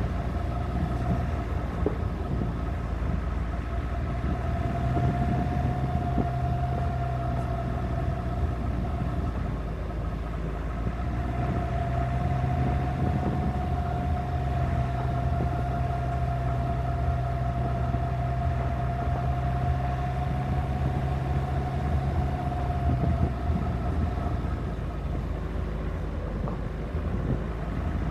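Suzuki Grand Vitara driving on a gravel track, heard from a roof-mounted camera: steady engine rumble and the rough noise of tyres on gravel, with a steady high whine running over it that fades near the end.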